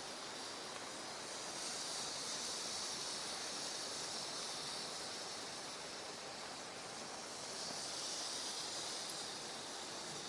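Flames of a bioethanol fireplace burner burning with a steady hiss that swells a little twice, about two seconds in and again about eight seconds in.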